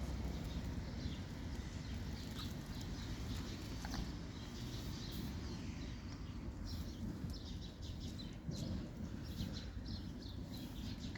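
A cat chewing food, with many small irregular crunching clicks over a steady low rumble.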